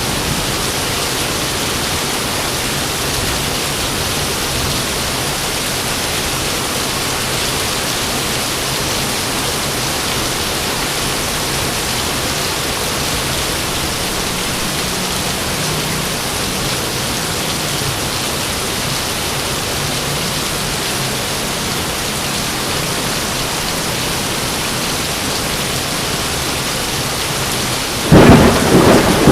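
Steady, even rain. Near the end a sudden loud thunderclap cracks in.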